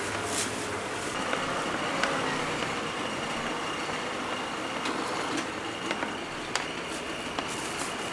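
Wooden rolling pins knocking and rolling on a stainless steel worktable as thin dough wrappers are rolled out, with a few sharp knocks over a steady background noise.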